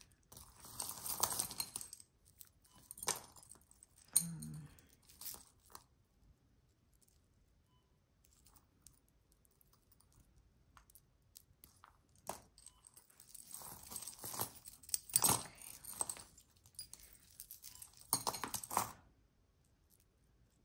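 Costume jewelry chains jangling and clinking together as they are handled and untangled, with rustling and crinkling mixed in. It comes in bursts, with a quiet pause of several seconds in the middle.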